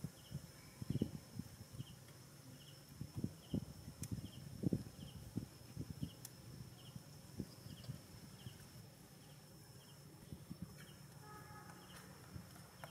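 Outdoor ambience. Irregular soft low thumps and knocks come through the first two-thirds, over a faint chirp repeating about twice a second that is typical of an insect. A short pitched call sounds near the end.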